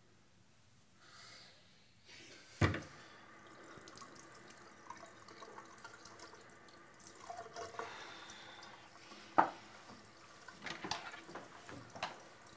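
Water running from a washbasin tap into the sink in a small tiled room. Sharp knocks come about two and a half seconds and nine seconds in.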